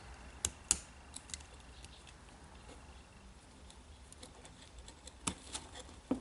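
Light clicks and taps of small plastic drill parts being handled and fitted by hand during reassembly of a Makita DDF484 gearbox and speed changer. A few scattered clicks, two near the start and a couple near the end, with quiet between.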